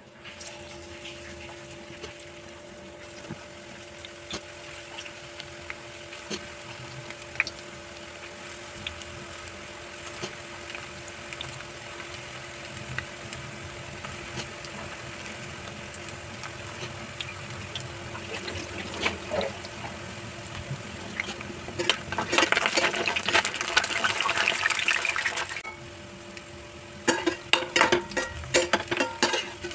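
Vegetable manchurian balls deep-frying in hot oil in a steel pan: a steady sizzle with small crackles, swelling to a louder, denser sizzle for about three seconds past the middle. Near the end a slotted metal spoon clatters and scrapes against the pan as the balls are turned.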